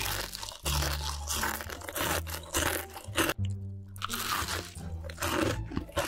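A person biting and chewing crunchy food, dense crackling crunches with a short pause a little past the middle, over background music.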